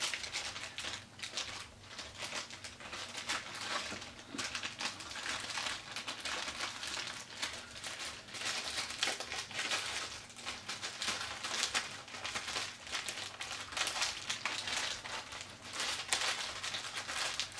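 Clear plastic bag crinkling and crackling as a folded cloth is worked back into it, a dense run of small crackles.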